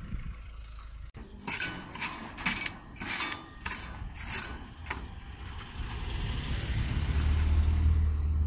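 Seven or so short scraping strokes, about two a second, from a hand tool worked at the sand pile and steel mesh. A low rumble builds in the last two seconds.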